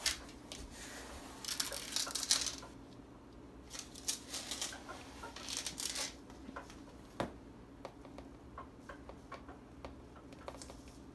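Sugar being measured out with a plastic measuring cup: two short dry, sandy rustles, one a little after the start and one about halfway, with light plastic clicks and taps.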